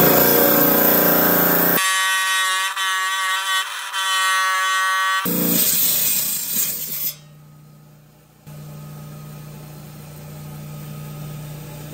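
Band saw cutting through an ammonite fossil: the blade grinds through the stone, with a pitched whine for a few seconds in the middle. The sound changes abruptly several times, and in the last few seconds only a quieter, steady motor hum remains.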